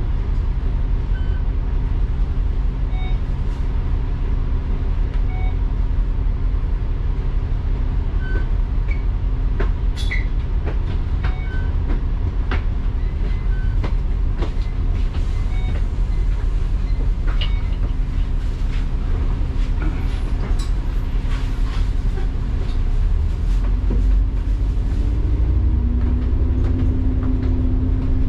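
Double-decker bus heard from its upper deck: a steady low engine rumble with scattered rattles and knocks from the body. About 23 seconds in, the engine note starts to rise as the bus pulls away or accelerates.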